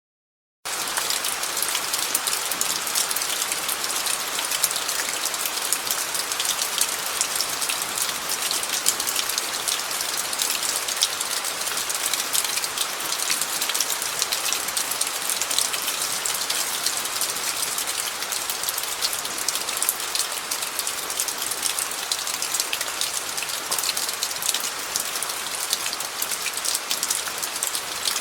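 Rain falling on gravel: a steady, dense patter of many small drop impacts, starting suddenly about half a second in.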